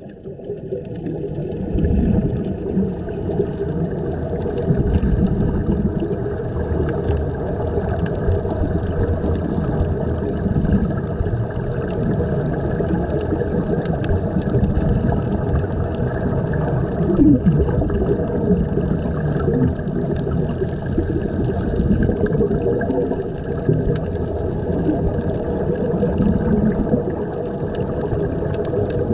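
Muffled underwater rumble picked up by a camera below the surface: air bubbling from the helmet divers' surface-fed air supply, over a steady motor drone carried through the water.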